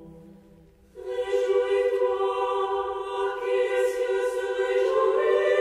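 Background music: a choir singing long held notes, entering about a second in as the earlier music fades, and stepping up in pitch near the end.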